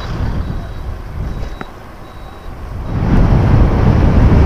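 Wind rumbling on the microphone of a motor scooter riding at speed, with road noise underneath; the rumble gets much louder about three seconds in.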